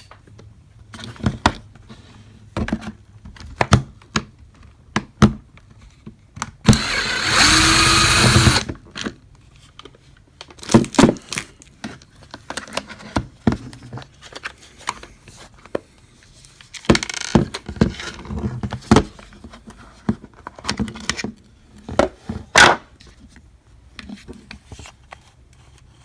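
A small electric motor runs for about two seconds, among scattered clicks and knocks of plastic housing parts and screws being handled.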